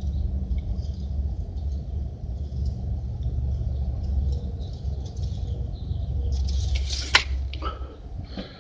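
Steady low rumble, with a single sharp knock about seven seconds in.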